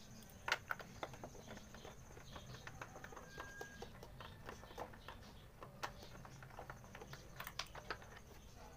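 Light, irregular clicks and taps of a small socket tool turning bolts and knocking on the plastic engine-side covers of a scooter, the sharpest click about half a second in.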